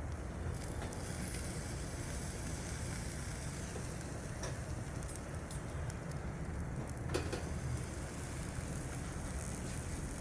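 Barbecue grill fire burning with a steady sizzle over a low rumble. A couple of sharp clicks come about four and seven seconds in.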